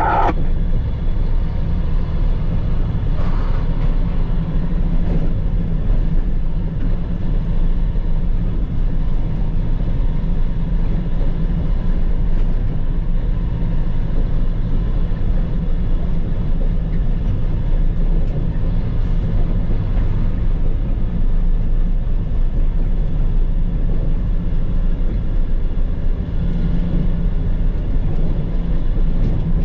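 Dump truck's diesel engine and drivetrain running in a steady low drone, heard from inside the cab.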